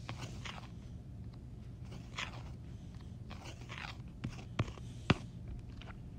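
Scratchy strokes and taps on a tablet's touchscreen while drawing, a few short scrapes followed by sharp taps, the loudest about five seconds in, over a low steady hum.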